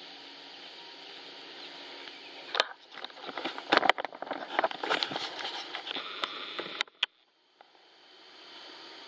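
Irregular close rustling and crackling for about four seconds, starting and ending with loud sharp clicks, over a steady high background hiss; it cuts off suddenly about seven seconds in.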